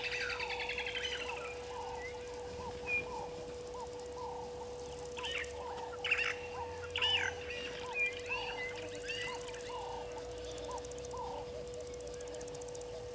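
Bushveld birds calling: one bird repeats a short note about twice a second while others give scattered higher calls, with a rattling trill at the start. A steady hum runs underneath.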